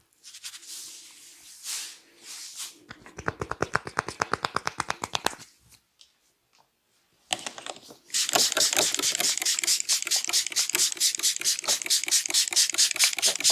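Head massage by hand: palms rubbing through hair, then a quick even run of light taps about eight a second. After a short pause comes a louder, sharper run of hand strikes on the head, about five a second.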